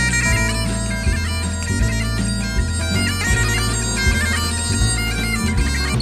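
Scottish bagpipes playing a melody of quickly stepping held notes, stopping abruptly near the end.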